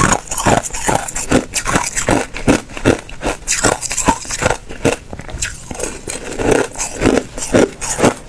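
A person chewing hard ice cubes: a steady run of loud crunches, about two to three bites a second.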